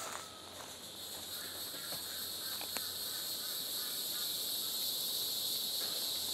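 A steady, high-pitched chorus of insects droning without a break, with a few faint clicks and rustles of movement.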